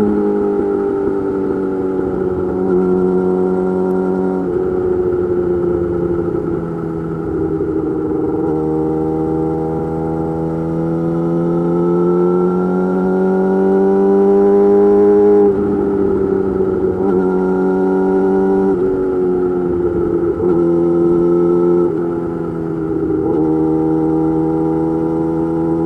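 Yamaha YZF-R6 inline-four sport bike running under way through an M4 GP slip-on exhaust with a custom mid pipe. The engine note shifts in pitch every few seconds and climbs slowly between the shifts as the throttle is worked.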